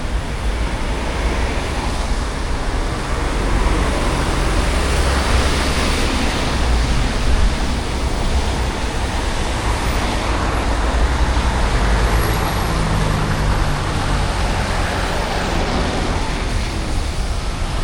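City street traffic: a steady rumble and hiss of passing vehicles, tyres on wet road. A passing engine's hum stands out about twelve seconds in.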